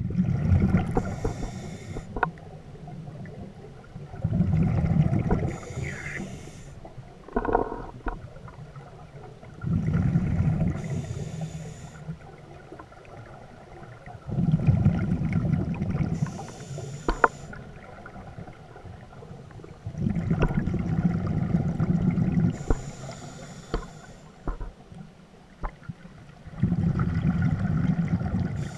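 Scuba diver breathing through a regulator, heard underwater: six breaths about every five to six seconds, each a two-second rumble of exhaled bubbles with a hiss at its end.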